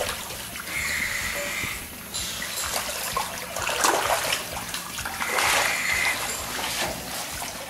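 Water splashing and sloshing around a diver in a hard-hat helmet as he pulls himself up a metal ladder out of a flooded pump-station sump. It comes in several louder surges.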